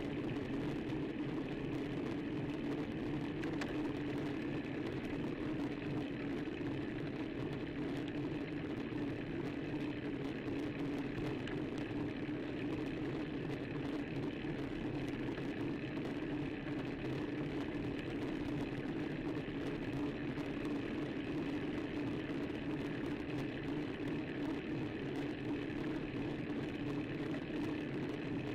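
Steady, unbroken rush of wind and road noise from a bicycle riding uphill, picked up by a bike-mounted camera's microphone.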